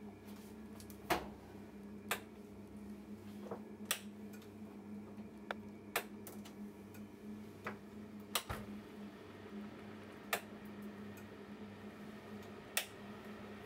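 A steady low hum with scattered sharp ticks, roughly one every second or two at uneven spacing.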